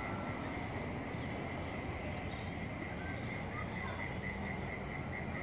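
Evening outdoor ambience: a low steady rumble with a thin, high chirping that pulses regularly at about three a second, becoming clearer partway through.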